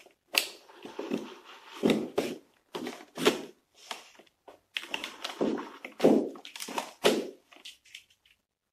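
Stiff clear plastic clamshell packaging being cut with a utility knife and handled: irregular crackles, scrapes and knocks with short pauses between them.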